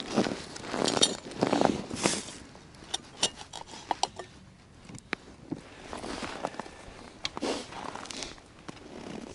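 Close handling sounds: rustling and scraping for the first couple of seconds, then a scatter of light clicks and clinks and more soft rustling.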